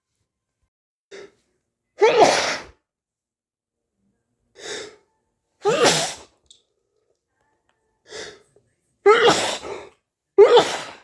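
A person sneezing four times in a row, each sneeze loud and short. Before each of the first three sneezes comes a fainter short sound about a second earlier.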